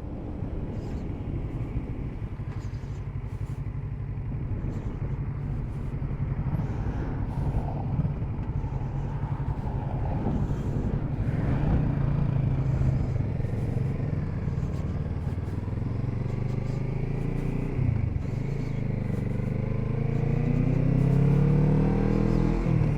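Kawasaki Z650RS parallel-twin engine running while the motorcycle is ridden, with wind and road noise; the engine note rises near the end as the bike accelerates.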